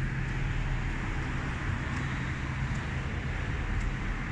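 Electric roller-shutter garage door closing: its motor hums steadily as the slatted curtain rolls down.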